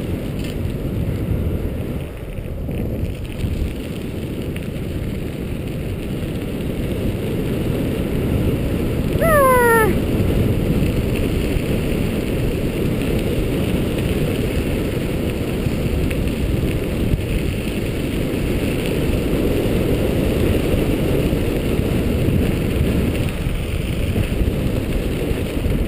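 Steady wind rush on the microphone and the rumble of a dog scooter's tyres rolling fast over a gravel trail. About a third of the way in comes one short call that falls in pitch.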